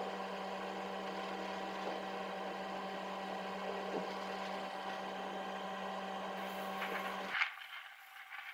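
A steady mechanical or electrical hum with a constant low tone and several fainter steady tones above it. About seven and a half seconds in, the hum cuts out, leaving only a faint hiss.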